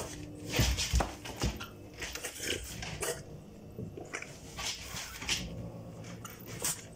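A French bulldog and a Burmese cat scuffling over a plush toy on a shelf: scrabbling and knocking, with a few heavier thumps in the first second and a half.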